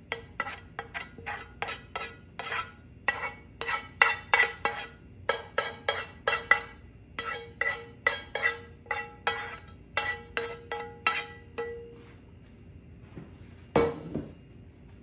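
A spoon knocking and scraping against the rim of a metal frying pan while sautéed mushrooms are emptied out, about two to three strikes a second, each leaving the pan ringing briefly. The knocking stops near the end, then a single louder thump.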